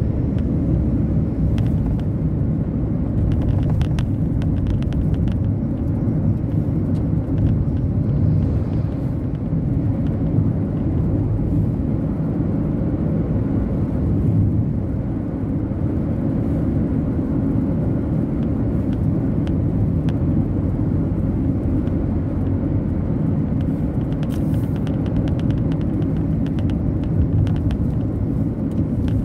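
Steady low rumble of a car driving along a road, engine and tyre noise heard from inside the cabin, with a few faint light ticks now and then.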